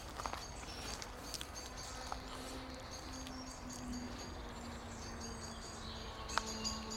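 Outdoor ambience: faint bird chirps, a low wind rumble on the microphone and scattered light footsteps through grass. A faint steady hum comes in about two seconds in.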